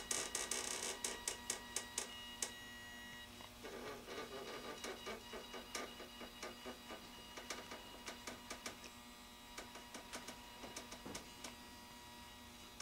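Small motor and gears of an HO-scale model boxcar dumper running as the platform tilts the boxcar, with rapid irregular clicking over a faint steady whir.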